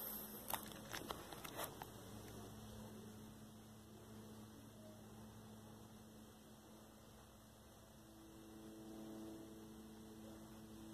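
Old Loren Sid four-blade ceiling fan running, a faint steady motor hum. A few sharp clicks in the first two seconds.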